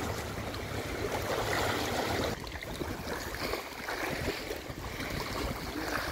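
Choppy, wind-ruffled lake water lapping and splashing at the shore, a steady rushing wash.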